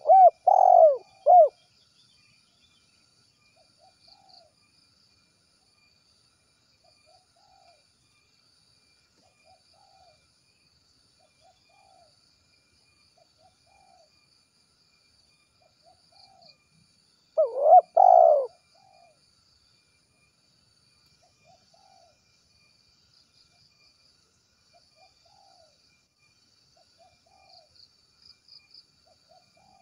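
Spotted dove cooing: a loud phrase of three coos at the start and another loud phrase about 18 seconds in, with fainter single coos repeating every second or so between them.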